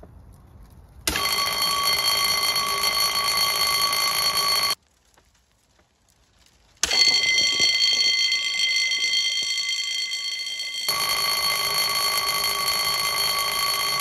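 Electric sprinkler alarm bell ringing continuously, set off by the water-flow switch as the sidewall sprinkler head opens and water flows. The ringing starts suddenly about a second in and cuts out for about two seconds in the middle. It then resumes over the hiss of water spraying onto the fire.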